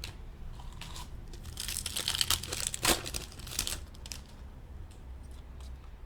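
A trading card pack wrapper being torn open and crinkled by hand, a burst of tearing and crackling about a second and a half in that ends with a sharp rip near the middle, followed by a few faint ticks of cards being handled.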